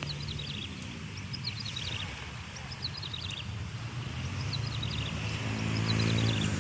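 Birds chirping in repeated short phrases of quick descending notes, while a motor vehicle's engine hum builds up and grows louder over the last couple of seconds.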